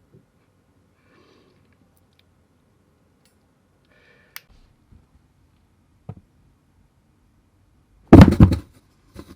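A cat pouncing: a few faint clicks in a quiet room, then a loud thump and short scramble near the end, followed by a small tap.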